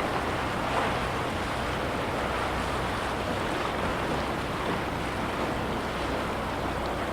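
Small lake waves lapping steadily against the shore, an even wash of water noise without a break, with a faint steady low hum underneath.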